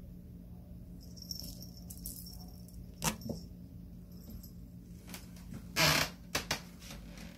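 A Ragdoll kitten's paws knocking and scuffing against a carpeted cat tree: a few short, scattered knocks, with the loudest, a brief scrape, about six seconds in, over a faint steady hum.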